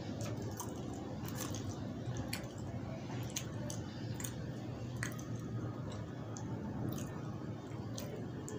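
Wet squishing of fingers mashing a boiled egg in curry on a plate, with scattered sharp little clicks every second or so over a low steady hum.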